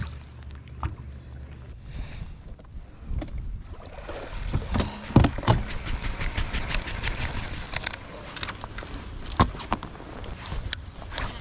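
Knocks and clicks of handling on a fishing boat's deck and tackle over a steady hiss that sets in about four seconds in.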